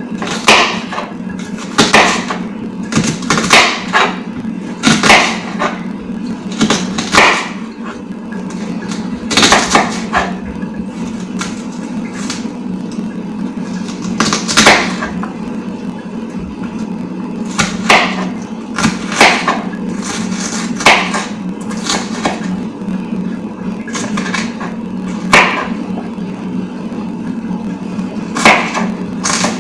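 Irregular sharp knocks of a knife chopping on a wooden cutting board, one every second or two with short pauses, over a steady low hum.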